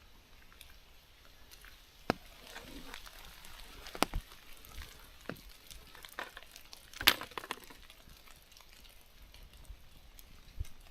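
Scattered knocks and scuffs of a hiker scrambling over wet rocks, his hands and boots striking and scraping the stone, with the sharpest knocks about two, four and seven seconds in.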